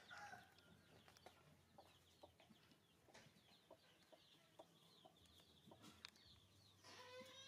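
Faint chickens clucking and peeping in the background, with small chirps and clicks. Near the end a baby monkey gives a short cry.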